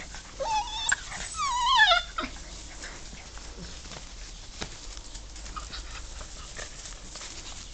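German shorthaired pointer puppy whining: two wavering, high calls in the first two seconds, the second one falling in pitch. After that only faint scuffling.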